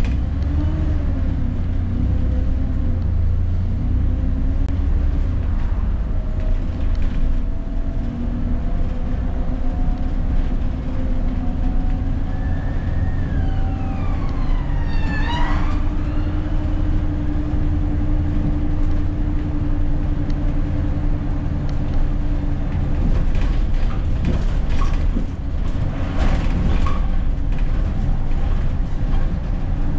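ADL Enviro400 double-decker bus under way: a steady low engine and drivetrain rumble, with a whine that drifts slowly in pitch as the bus changes speed. About halfway through, a higher whine slides down in pitch, and there are short rattles near the end.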